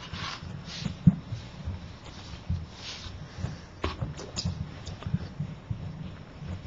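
Low room noise with a few soft breaths or sniffs and scattered small clicks and knocks, like a hand moving against a paper cup on a table.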